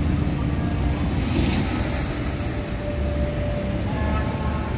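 Road traffic with motor scooters and cars passing close by: a steady rumble.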